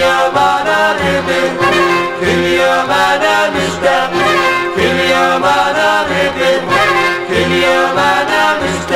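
Band music in a Middle Eastern, Turkish-Arabic style, with a sustained melody over a regular bass beat.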